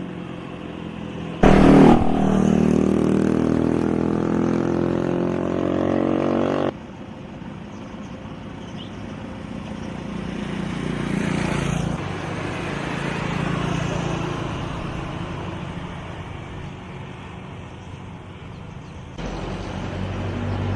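Motor vehicles on a road: a loud engine starts suddenly about a second and a half in, its pitch rising as it speeds up, and cuts off abruptly about five seconds later. Then the sound of passing traffic swells and fades twice.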